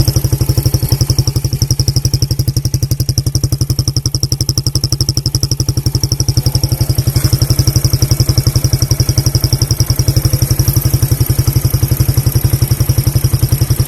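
Suzuki Belang motorcycle idling through a standard-chamber exhaust fitted with a fake turbo whistle: a steady, fast exhaust beat with a clearly noticeable high whistle riding on it.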